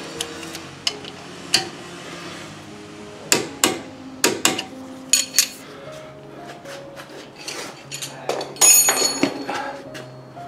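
Metal hand tools clinking and knocking: scattered sharp clinks, with a ringing cluster of them about eight and a half seconds in. Background music with plucked guitar plays underneath.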